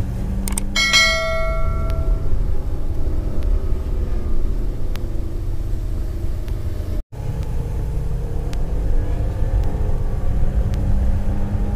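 Car driving on a wet road in the rain, heard from inside the cabin: a steady low rumble of road and tyre noise with scattered light ticks. About a second in, a bell-like ding rings out and fades, and about seven seconds in the sound cuts out for an instant.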